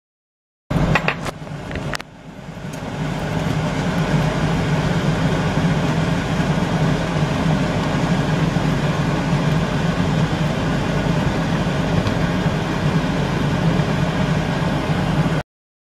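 Water boiling hard in a pot under a stainless-steel steamer basket, a steady rushing rumble that builds up over a couple of seconds and then holds. A few sharp metallic clicks come just before it, from metal tongs against the steel steamer basket.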